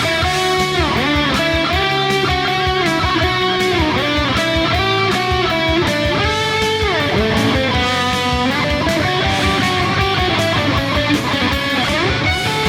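Gibson electric guitar played through a Line 6 HX Stomp XL, a lead line whose notes glide up and down in pitch, over a rock band backing track with a steady drum beat.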